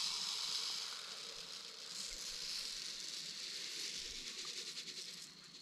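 Tannerite mix of white beads coated in grey powder pouring from a jug into a smaller container: a steady, sandy hiss of trickling grains that thins out and grows fainter toward the end.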